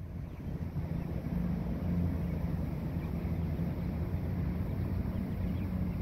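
Steady low engine hum, rising a little in the first second, with wind rumble on the microphone.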